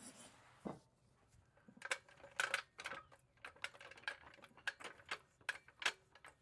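Irregular light clicks and taps, a few a second, with a low thud about three quarters of a second in.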